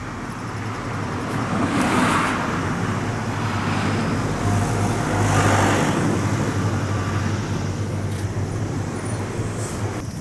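Road traffic at a level crossing: vehicles passing by, one about two seconds in and another around five and a half seconds in, over a steady low hum.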